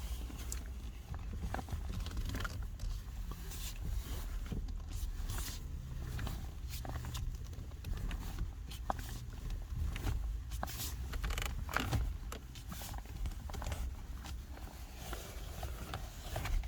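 Duster 2's steering wheel turned with the engine switched off: only scattered light clicks and rustles over a low rumble, with no creak. With the engine off the column creak is gone, which the owner takes to point at the electric power steering.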